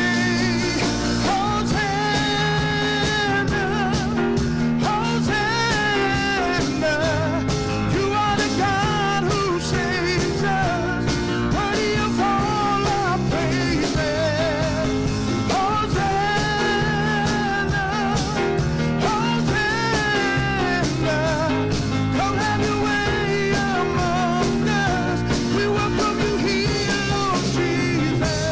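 A song with a sung melody over a band: held chords, bass and guitar, with the voice wavering in vibrato on long notes.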